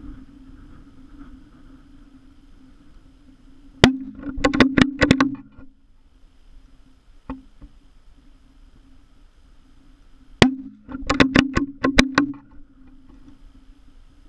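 Sako Finnfire .22 rimfire rifle fired twice through an empty half-litre plastic bottle serving as a homemade silencer: two sharp shots about seven seconds apart. Each shot is followed by a quick run of metallic clicks as the bolt is worked to eject and chamber the next round.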